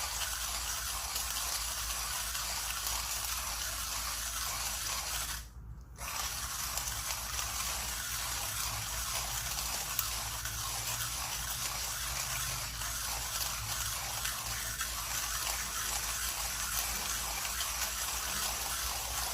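Millwright hand grinder's burrs crushing coffee beans at an espresso setting as the crank is turned steadily. The grinding breaks off briefly about five and a half seconds in, then carries on.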